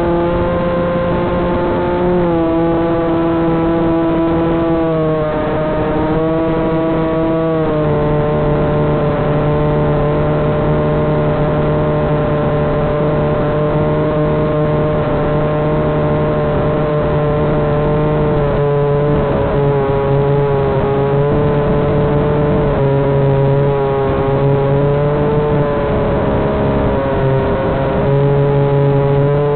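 Walkera Hifa quadcopter's motors and propellers whining as it flies, with the pitch stepping up and down a little every few seconds as the throttle changes. Wind rushes over the onboard microphone underneath.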